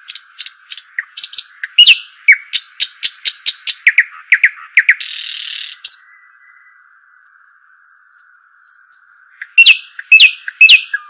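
Nightingale singing: fast series of sharp repeated notes, a harsh buzzing phrase about five seconds in, a pause with a few soft thin whistles, then loud rapid notes again near the end.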